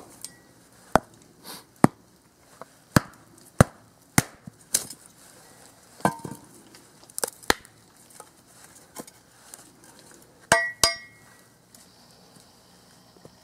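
Sharpened steel blade of a Cold Steel Special Forces shovel, used as a hatchet, chopping and splitting small sticks of dead wood: about fifteen sharp strikes at uneven intervals. Two strikes about ten seconds in have a short metallic ring.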